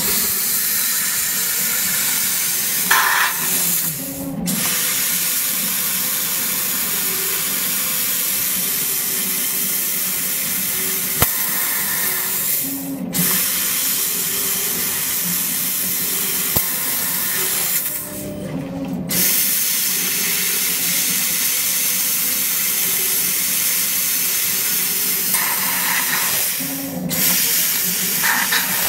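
Steady hiss of the assist gas jet from a laser cutting head's nozzle while it cuts a metal tube turning in a rotary chuck. The hiss drops out briefly four times, between cuts, with short motor whirrs around those breaks.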